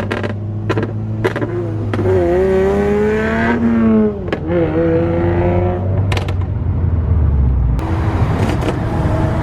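Subaru WRX turbocharged flat-four revving up, with its pitch rising, then dropping sharply on a lift-off or gearshift about four seconds in. Short, rapid fluttering chatter bursts come from the turbo and its recirculating HKS SQV4 blow-off valve as the throttle closes.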